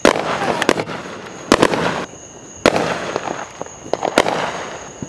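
Aerial fireworks bursting: several sharp bangs about a second apart, with crackling between them.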